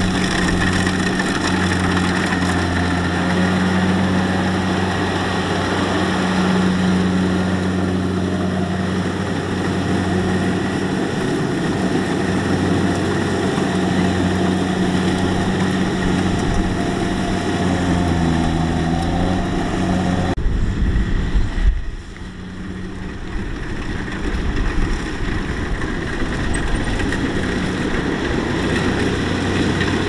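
Kubota combine harvester's diesel engine running steadily, with its pitch dipping briefly near the middle. About twenty seconds in, the sound thins to a low rumble and drops for a moment, then the engine sound comes back up.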